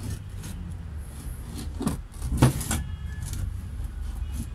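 A few short metallic knocks and clinks as a small bench vise holding a coin is handled and shifted on the workbench, the loudest about halfway through, over a steady low rumble.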